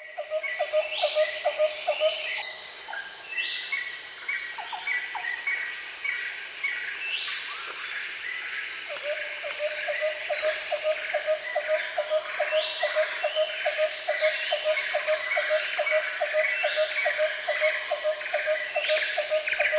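Night-time nature chorus: a steady high insect trill under repeated chirping calls, with a lower pulsed call at about four a second that stops for several seconds after the start and then runs on.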